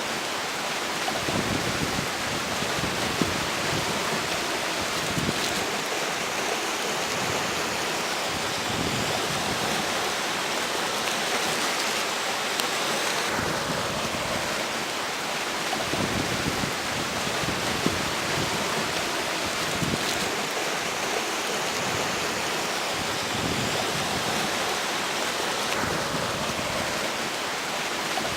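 River water flowing in a steady rush, with strong wind gusting and buffeting the microphone in low rumbles every few seconds.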